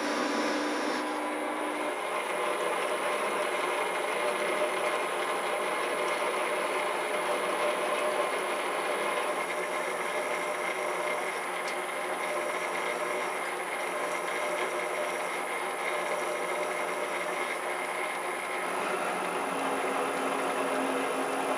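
Metal lathe running and cutting steel, a steady machining noise whose tone shifts abruptly a few times.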